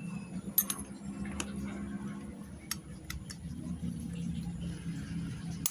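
A few sharp, separate metallic clicks and taps as small motorcycle engine parts and tools are handled, over a low steady hum.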